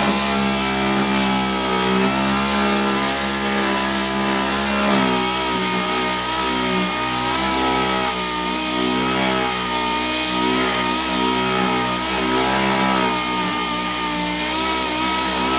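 Electric dual-action (DA) polisher running steadily with a 3000-grit sanding disc, sanding a plastic headlight lens. The motor hums at a fairly even pitch with a hiss from the pad; its pitch shifts slightly about five seconds in and again near the end.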